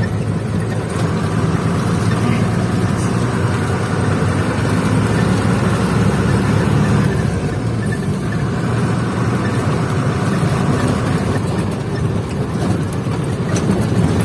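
Truck engine running steadily while driving, heard from inside the cab along with road noise.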